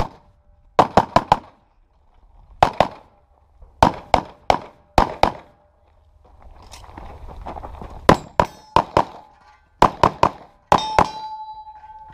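Pistol shots fired rapidly in quick strings of two to four, about six strings with short pauses between, as a competitor works through a practical shooting stage. Several shots are followed by a metallic ring from steel targets being hit, the longest near the end.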